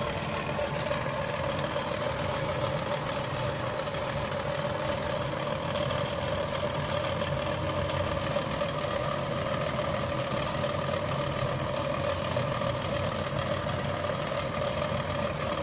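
A steady mechanical hum with a constant tone, unchanging throughout, like a motor or fan running.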